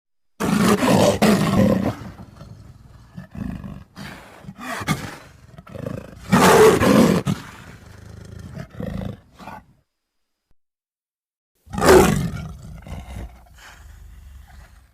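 Wolf sound effects: three loud snarling bursts, the first right after the start, one about six seconds in and one near the end, with quieter rasping growls between them and a short dead-silent gap before the last.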